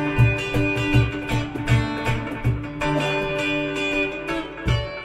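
Acoustic guitar strummed in a steady rhythm, sustained chords over a low thump about four times a second.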